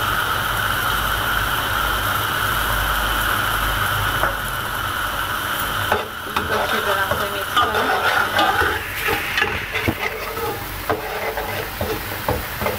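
Spiced oil and onion-garlic-ginger paste sizzling steadily in a metal pot. About six seconds in, a spoon starts stirring the masala, with irregular scrapes and clinks against the pot.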